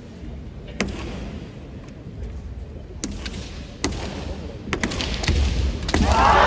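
Kendo bout: sharp cracks of bamboo shinai and stamping feet on a wooden floor, a few widely spaced at first, then a quick cluster of strikes, ending in a loud shout.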